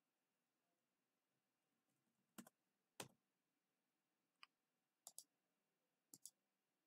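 A few faint, sharp computer mouse and keyboard clicks in near silence. The last ones come in quick pairs, like double-clicks.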